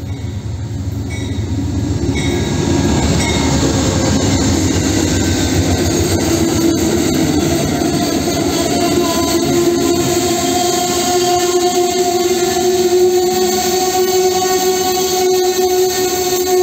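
Amtrak Northeast Regional passenger train passing close by, Amfleet cars rolling past. Its rumble builds over the first few seconds into a steady roar of wheels on rail, with a steady tone over it and a few sharp clicks from the wheels.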